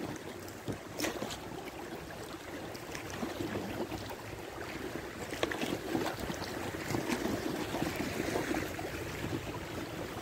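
River water rippling and splashing around an inflatable kayak moving down a shallow, choppy stretch, with small irregular splashes throughout.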